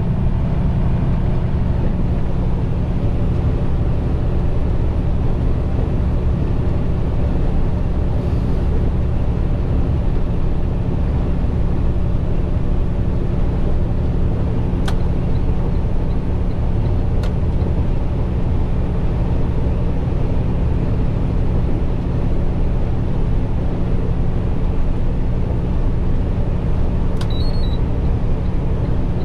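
Steady engine and road noise inside a truck cab cruising at highway speed: a constant low drone with an even engine hum beneath it.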